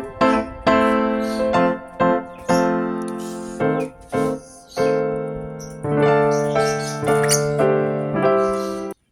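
Background piano music: a slow run of struck notes over held chords, each fading after it is played. The music cuts out briefly near the end.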